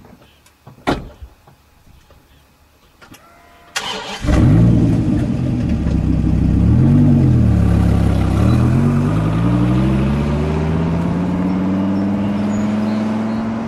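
Dodge Viper V10 engine cranked and firing up about four seconds in, after a few light clicks. It blips up once, then climbs steadily in pitch as the car accelerates away.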